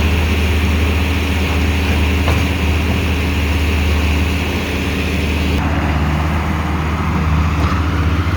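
Farm tractor engine running steadily at about 1900 rpm with the PTO engaged, a strong low hum under a broad mechanical noise. A little over halfway through, the hiss drops and the hum changes slightly.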